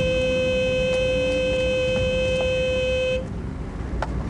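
Car horn sounding in one long, unbroken, steady blast that cuts off abruptly about three seconds in, followed by a few faint clicks. Nobody is at the wheel while the bonnet is up and the engine is being worked on, so the horn is stuck on.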